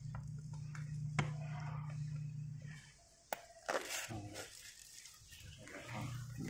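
Clear plastic wrapping rustling and crinkling as it is handled, with a few sharp clicks. A low steady hum runs through the first half, stops, and comes back near the end.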